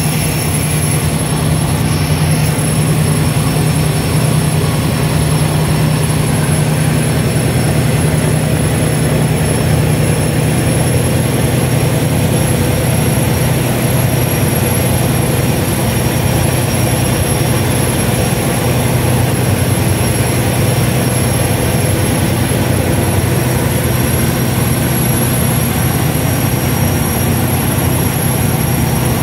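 Large passenger vessel's engines running steadily at speed, a loud even drone with a thin high whine above it, mixed with the rush of the churning propeller wash behind the stern.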